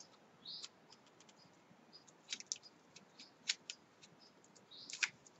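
Faint, scattered small clicks and light rustles of a paper flower and a hot glue gun being handled.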